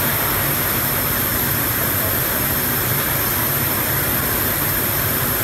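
Steady roar of factory machinery and ventilation on a hinge production line, an even noise with a low hum underneath.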